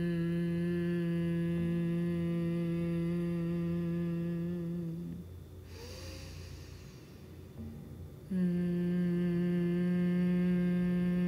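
A woman humming in Bhramari (humming-bee) breath: a long hum on one steady pitch during the exhale, stopping about five seconds in. A short breath in follows, then another steady hum starts about eight seconds in.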